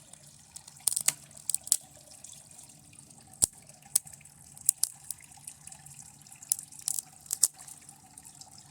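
Irregular sharp crackles and snaps, about fifteen of them at uneven intervals, from circuit board material burning and arcing under high battery current. A faint steady hum lies beneath them.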